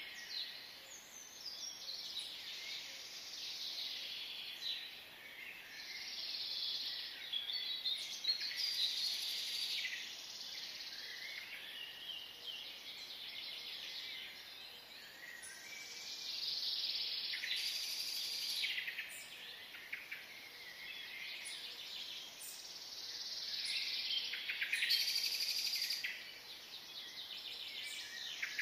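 Many small birds chirping and twittering at once in a dense, continuous chatter that swells and fades every few seconds.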